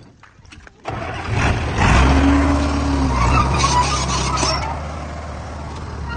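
Diesel engine of heavy earthmoving machinery (bulldozer or road roller) running loudly and steadily, cutting in abruptly about a second in.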